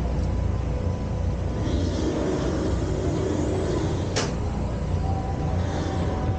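Steady low rumble of a paddle-wheel riverboat under way, with a faint steady whine over it and one sharp click about four seconds in.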